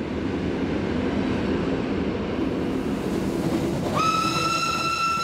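A train running through a tunnel, with a steady low rumble of wheels on rail. About four seconds in, it sounds a long, high horn note.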